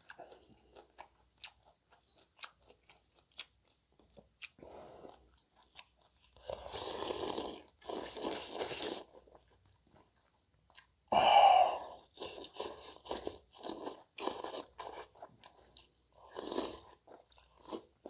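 Close-miked eating: wet chewing with crunchy bites and many small mouth clicks, broken by several longer noisy bursts of about a second each, the loudest about eleven seconds in.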